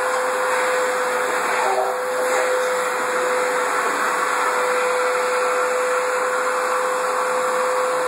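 Canister vacuum cleaner running steadily: a constant rush of air with a steady motor whine.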